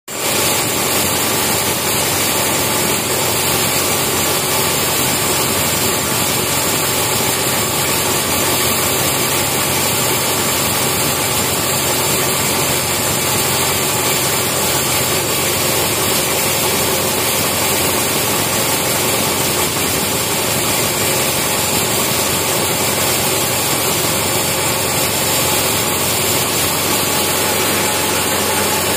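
Log band sawmill running steadily, its motor and blade giving an unchanging machine drone at a constant level.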